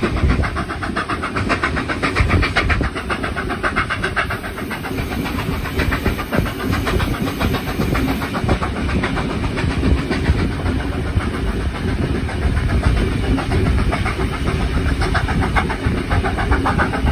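Steam-hauled passenger train running at speed, heard from an open carriage window: a steady low rumble and rattle of the wheels on the rails with wind rushing past. A fast, even beat runs through it throughout.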